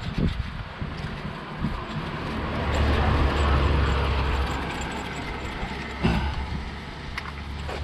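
A passing vehicle's rumble swells, peaks about three to four seconds in and fades away, with a few short knocks near the start and about six seconds in.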